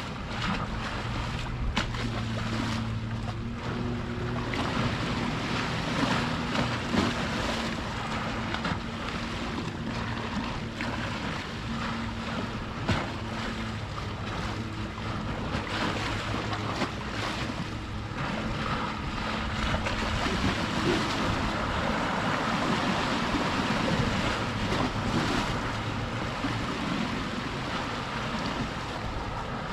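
Waves washing at the shore with wind, and the low steady hum of a boat's motor over the first two-thirds, fading out later.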